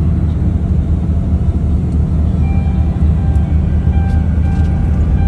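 Steady low rumble of a coach bus on the move, engine and road noise heard from inside the cabin.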